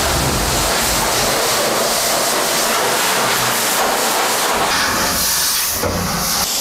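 Loud steady hiss of a pressure sprayer jetting cleaning foam into an emptied fuel tank.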